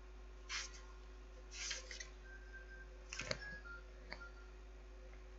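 Quiet room tone with a steady faint hum, broken by four or five short, soft noises scattered through it.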